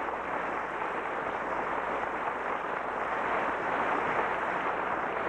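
Radio-drama sound effect of wind and sea rushing steadily, standing for a sailing ship cutting through the swells under way.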